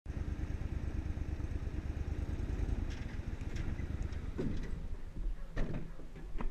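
Boat's outboard motor running with a fast low pulse that eases off after about four seconds as the boat comes into the bank. A few sharp knocks and clatter against the aluminium hull follow, the loudest near the end.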